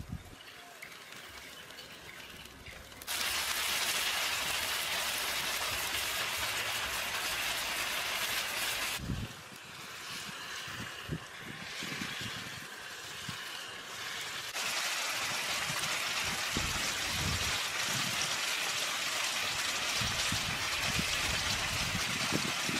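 Duck meat and chillies frying in a pan over a wood fire, a steady sizzling hiss. The sizzle jumps louder about three seconds in, drops back around nine seconds and comes up again near fourteen seconds, with a few soft low thumps underneath.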